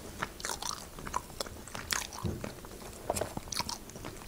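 A person chewing food close to the microphone, with a string of small wet mouth clicks and smacks.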